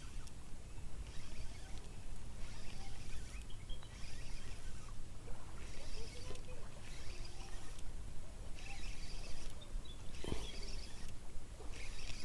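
Small spinning reel (Ryobi Smurfs 1000) cranked in spells of about a second, with short pauses, as a hooked fish is fought on ultralight tackle, over a steady low rumble. A single knock about ten seconds in.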